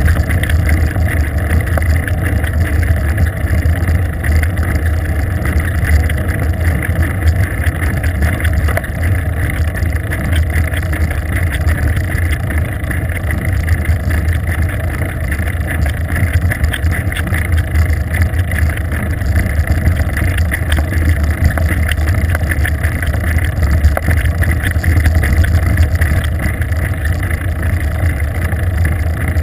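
Wind buffeting the microphone of a GoPro camera on a moving bicycle: a steady, loud low rumble with a rushing hiss above it.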